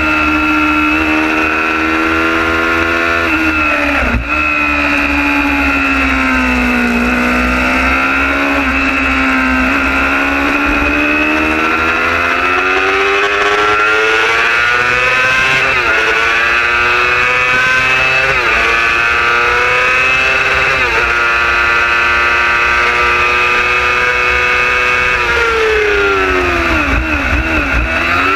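Racing superbike engine at high revs from onboard the bike, its pitch climbing and dropping as it runs through the gears. There is a sudden break about four seconds in, typical of a quick upshift, and a long falling pitch near the end as it slows for a corner. A low rumble runs underneath.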